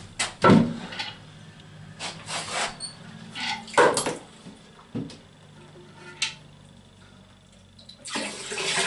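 Knocks, clunks and scraping as a ceramic toilet cistern is worked loose and lifted. Near the end, a steady rush of water starts as the leftover water in the cistern pours into the toilet bowl.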